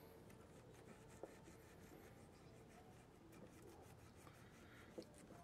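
Faint rubbing of a rag wiping old brake dust out of the pad slots of a steel brake caliper bracket, with two soft clicks, one about a second in and one near the end.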